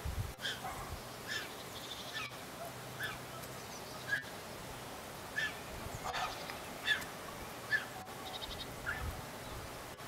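Griffon vulture chick giving short, repeated begging calls, about one a second, as it begs the adult to feed it by regurgitation.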